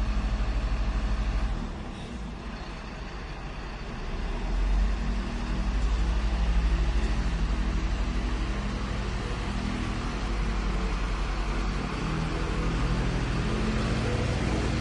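Garbage truck engine running in the street. It drops in level about one and a half seconds in, picks up again around four to five seconds in, then runs steadily.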